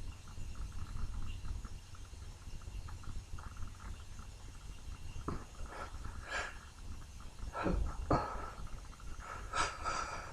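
A man sniffing and taking sharp breaths through the nose between sneezes, five short ones in the second half, over a steady low rumble.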